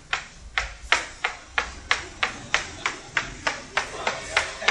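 Sharp knocks in an even rhythm, about three a second, some louder than others.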